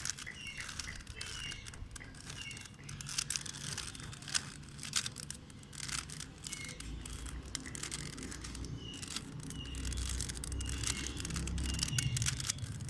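Rubik's cube being turned by hand: irregular quick plastic clicks and clacks as the layers rotate. Short high bird chirps come and go in the background.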